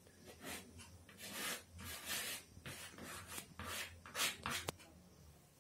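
Chalk scratching on a chalkboard as a line is drawn: a series of short rasping strokes of different lengths, with a sharp tick about four and a half seconds in.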